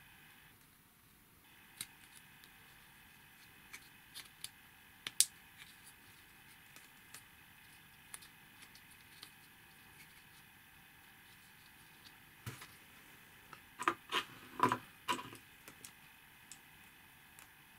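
Small plastic kit parts clicking and clacking as they are handled and pressed together by hand: scattered single clicks, then a louder quick cluster of clacks about fourteen seconds in.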